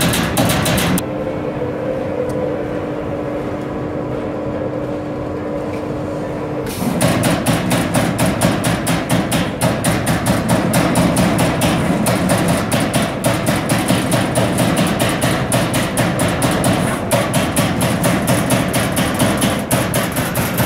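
Servo-driven CNC turret punch press hitting a steel sheet in rapid, even strokes, several a second. The strokes stop about a second in, leaving a steady hum from the machine, and start again about seven seconds in and run on.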